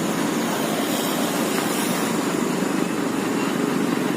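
Vehicle engines running steadily, a continuous rough engine noise with no let-up.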